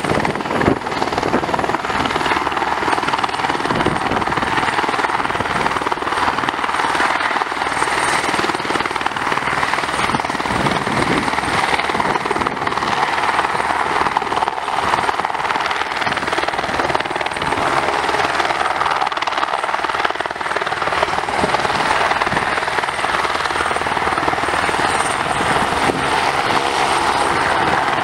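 Eurocopter AS350 B3 helicopter hovering low, its single turboshaft engine and main rotor running steadily, with a thin high turbine whine above the rotor noise.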